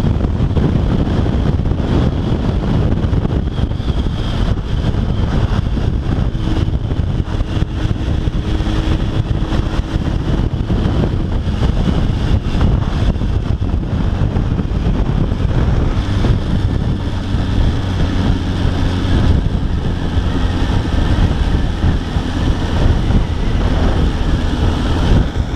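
Suzuki Bandit 600's inline-four engine running steadily while riding, under heavy wind rumble on the microphone.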